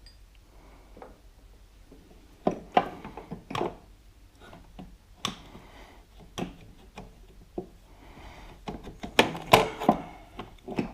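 Irregular clicks, clinks and knocks of hand tools and metal parts while a front shock is worked loose from the suspension, with a quick run of louder knocks near the end.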